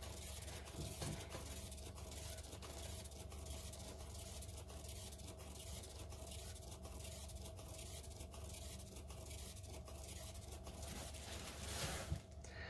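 Turntable spinning a paint-covered tile: a faint steady hum with a light, even ticking, stopping near the end.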